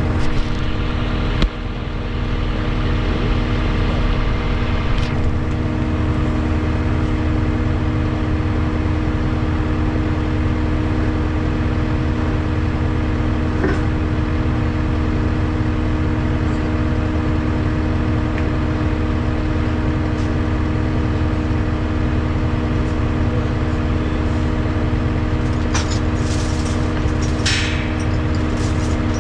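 Diesel engine of a tri-axle rollback truck running at a steady speed, a constant low drone with a steady hum. There are a few light rattles near the end.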